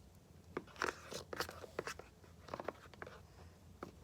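Irregular light clicks and scrapes of a utensil against a small container while stirring coloured glue for slime.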